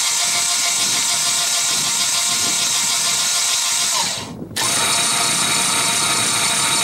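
Fifth-wheel trailer's electric landing-jack motor running the jacks through a newly fitted aluminium 3:1 gearbox, a steady whining drone. It stops for about half a second around four seconds in, then starts again. There is no crunching from the gears: the new gearbox is meshing properly.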